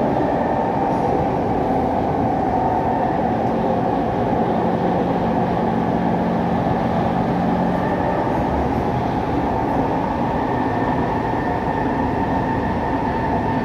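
SMRT C151 metro train running at speed, heard from inside the carriage: a steady, loud rumble of wheels and running gear. A low hum under it fades out about eight seconds in.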